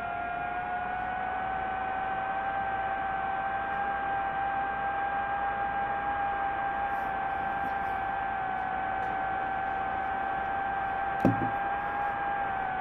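DJI FPV drone's motors and propellers whining steadily in fast forward flight. The pitch rises slightly about a second in and eases down near the end. A single short thump comes about eleven seconds in.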